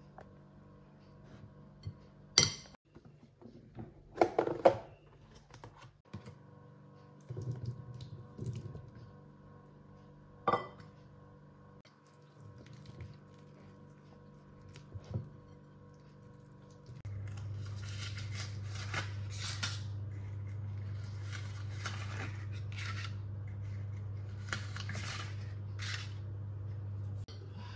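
Kitchen utensils and dishes being handled, with a few sharp knocks and clinks. About two-thirds of the way through, a steady low hum starts, with bursts of scraping or rustling over it.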